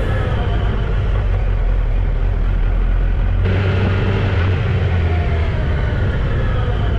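Motorcycle engine running on the move, with wind rumble on the bike-mounted camera. The engine pitch glides down and up, and the sound changes abruptly about three and a half seconds in.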